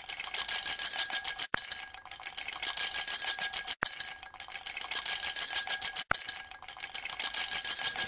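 A high, bright electronic ringing like a bell or alarm, pulsing rapidly and looping. It cuts out briefly about every two and a quarter seconds.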